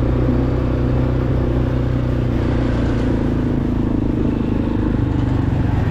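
Quad bike (ATV) engine running at a steady, even speed while it is ridden along a rough dirt road.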